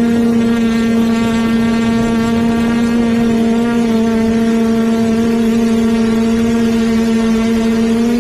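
Quadcopter's electric motors and propellers running in flight, a steady buzzing drone. Its pitch shifts slightly about four seconds in and again near the end.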